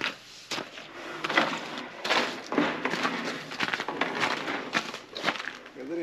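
Long wooden boards being handled and slid across a wooden frame: an irregular run of scraping, rubbing and light knocks.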